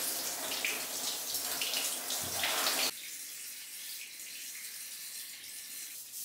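Steady rush of running water, as from a tap, that cuts off suddenly about three seconds in, leaving only a faint hiss.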